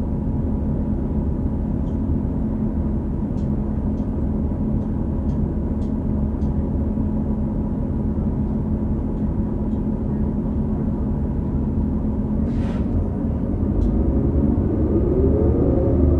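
Interior sound of a 2018 New Flyer XD40 transit bus, its Cummins L9 diesel and Allison B3400xFE transmission running with a steady low rumble and a fixed whine, the odd transmission bearing noise. A short hiss comes near the end, and then the bus pulls away, its whines rising in pitch as it speeds up.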